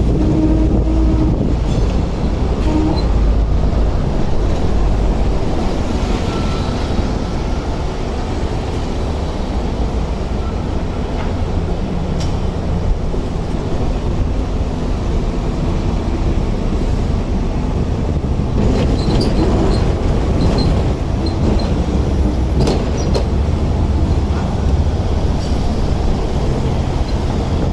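Hong Kong double-decker electric tram running along street track, heard from on board: a steady low rumble of wheels and running gear. Sharp clicks and clanks come through several times as it rolls over track joints and points.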